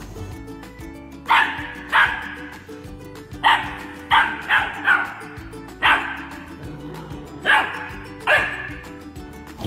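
A dog barking: about nine short, sharp, high-pitched barks in irregular groups, over background music.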